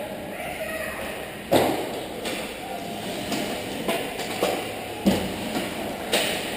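Ice hockey play in a rink: sharp knocks of sticks, puck and boards, the loudest about a second and a half in and others near five and six seconds, over voices in the background.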